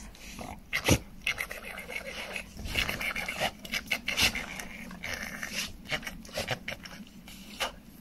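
Husky panting close to the microphone, with irregular rustling and knocking as the dog presses against the person; a sharp thump about a second in is the loudest sound.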